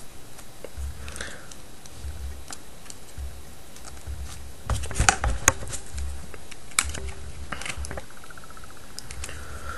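Small, scattered plastic clicks and taps from a smartphone being taken apart by hand, with a cluster of sharper clicks about five seconds in.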